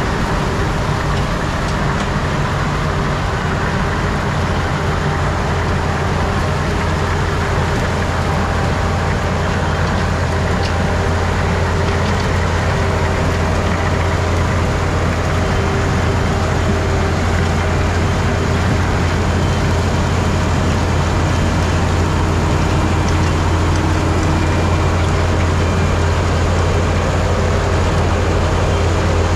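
Ploeger EPD 530 self-propelled pea harvester running as it harvests peas, a loud, steady machine drone with a strong low hum.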